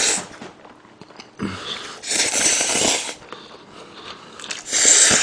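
Instant jjajang noodles in black-bean sauce slurped up from chopsticks: a long slurp from about a second and a half in, and a shorter one near the end.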